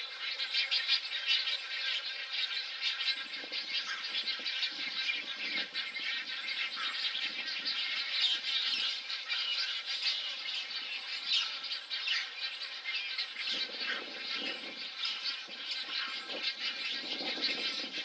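Great egrets calling at a nesting colony: a dense, rapid, clicking chatter throughout, with lower, harsher squawks about three to six seconds in and again from about thirteen seconds in.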